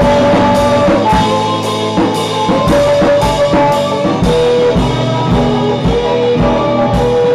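A rock band playing live in a small room: a drum kit keeps a steady beat with cymbal hits about twice a second, under electric guitar chords.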